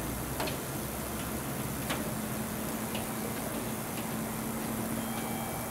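KiHa 47-series diesel railcars approaching slowly in the distance: a faint steady engine hum under background hiss. A few sharp clicks come through, the two clearest about a second and a half apart, and faint high steady tones sound near the end.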